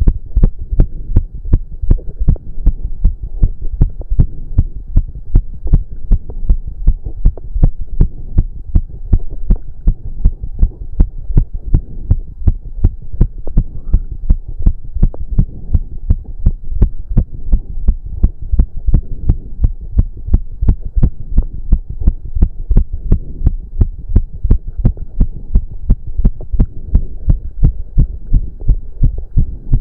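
A man's heart beating fast and evenly, a racing heartbeat during cardio exercise, each beat a low thud.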